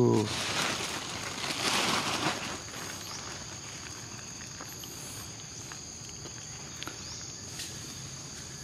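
Insects trilling steadily at a high pitch, with a louder rustling noise over the first two seconds.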